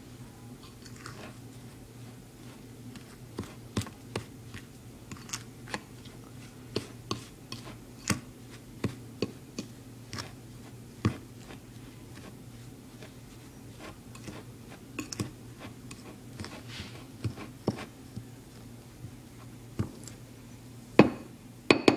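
Fork clicking and scraping against a bowl while mashing flour into butter and sugar to make crumbly dough: irregular taps, roughly one every half second, with a couple of louder knocks near the end.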